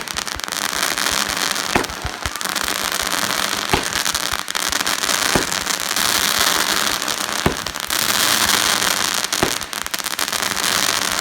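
A 200-gram firework cake (repeater) firing, one shot about every two seconds, over dense continuous crackling from the bursting effects.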